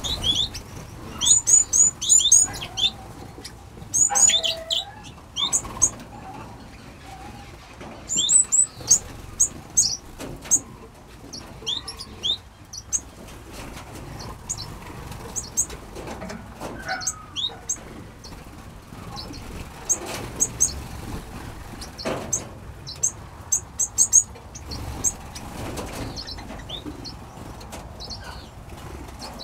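Small aviary finches calling: many short, high chirps coming in quick clusters, with a few lower notes around four seconds in and occasional wing flutters.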